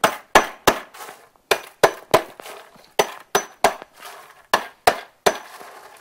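Hammer striking a steel chain laid on a wooden tabletop, denting and distressing the wood: about a dozen sharp blows, roughly two a second, each with a short metallic clink from the chain links, with a brief pause near the middle.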